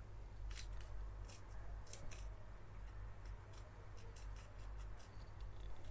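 Small scissors snipping through folded glossy paper: a quick, irregular run of short snips.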